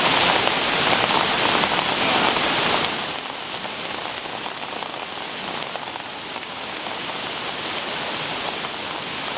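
Heavy tropical rain pouring down as a steady, dense hiss, which drops abruptly to a softer, still steady downpour about three seconds in.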